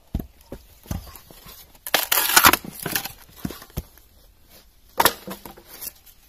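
A western red cedar block being split with a froe. A couple of sharp knocks come first; then about two seconds in, the shake splits off the block along the grain in a noisy burst lasting about half a second. Lighter knocks of the split wood being handled follow.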